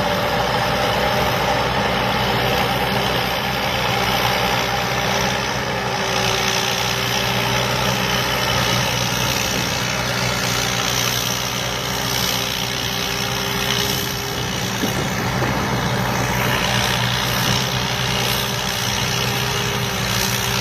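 Thai Charoen Kan Chang combine harvester running, its diesel engine steady under a broad, even mechanical noise.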